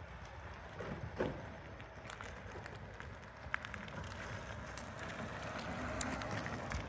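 2021 Vmoto CPA electric scooter riding slowly around on concrete: mostly tyre noise with a faint steady motor whine, with no engine note, growing louder as it comes close in the second half.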